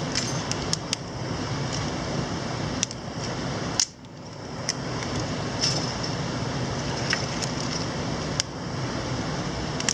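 Steady rush of a mountain stream, with scattered sharp clicks and knocks over it.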